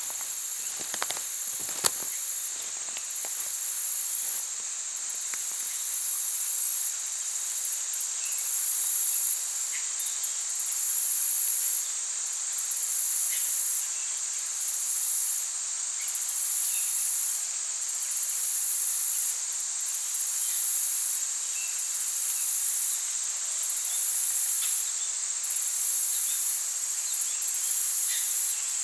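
Insects chirping: a steady high-pitched buzz with a shriller chorus that swells and drops away in pulses about every one to two seconds. A few faint knocks and rustles sound in the first few seconds.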